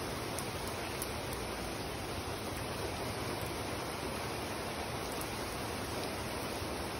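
Heavy rain falling steadily onto wet pavement and puddles, an even, unbroken hiss.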